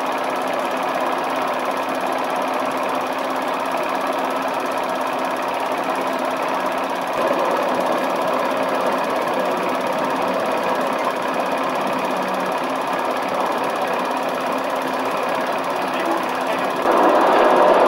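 Cine-film projector running: a steady, rapid mechanical clatter with a faint hum. It grows a little louder about seven seconds in and louder again near the end.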